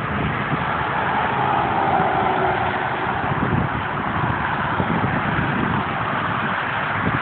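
Road traffic passing on a multi-lane road: steady tyre noise and car engines going by, swelling a little about two seconds in as a car passes with a faint falling pitch.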